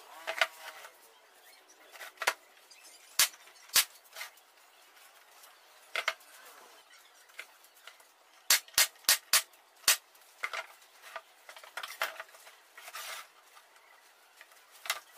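Thin 9 mm plywood panels knocking and clacking against each other and the workbench as they are fitted together by hand. The sharp knocks come at irregular intervals, with a quick run of about five a little past the middle.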